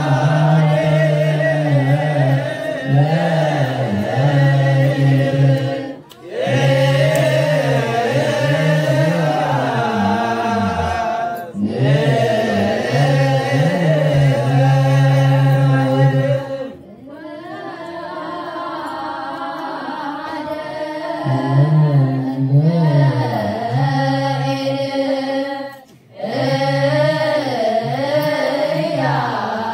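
A group of voices chanting Ethiopian Orthodox wereb, a liturgical hymn, in unison. It moves in long held, slowly winding phrases separated by brief pauses, with a quieter passage in the middle.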